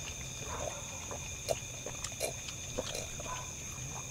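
Close-up mouth sounds of people eating fried pork cutlet and rice with their hands: irregular wet chewing and smacking, with a few sharp clicks. Underneath is a steady high-pitched drone of night insects.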